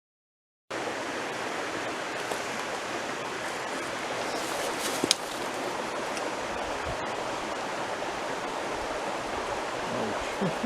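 Steady rush of a rocky brook's water flowing over stones. The sound cuts out completely for a moment at the start, and there is a single light knock about five seconds in.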